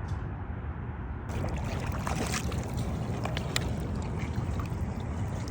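A vehicle driving through deep floodwater, its engine running under the rushing and splashing of water, with a low rumble throughout. The recording cuts to a different shot about a second in.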